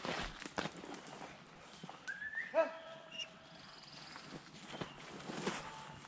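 Hunting beagles yelping and giving voice in short pitched calls, starting about two seconds in. Footsteps crunch through dry brush during the first second.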